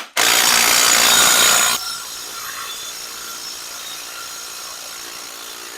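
Impact wrench hammering hard for about a second and a half as it breaks loose a rear leaf-spring pocket bolt, then spinning more quietly with a steady whir as the loosened bolt runs out.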